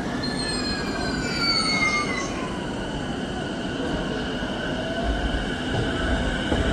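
JR E233-6000 series electric train pulling out, its inverter-driven motors whining in shifting tones over the running rumble. One tone glides down over the first few seconds, then steady higher tones and a slowly rising tone come in as it gathers speed.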